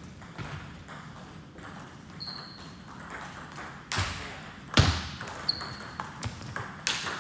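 Table tennis rally: the celluloid-type ball clicks off the paddles and the table in quick succession. The sharpest hits come about four and five seconds in.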